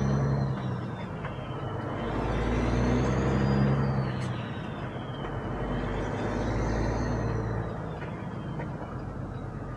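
Caterpillar diesel engine of a Peterbilt 389 semi truck running under way, its note swelling and easing in three waves a few seconds apart, with a thin high whistle rising and falling along with it.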